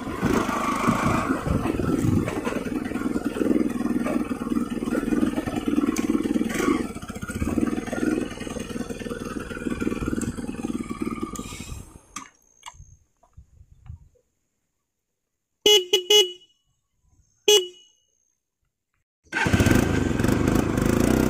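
Motorcycle engine running as the bike rides along a rough dirt track; the sound stops about two-thirds of the way through. In the near-silent gap that follows come short horn toots, three quick ones and then one more, before the engine sound returns near the end.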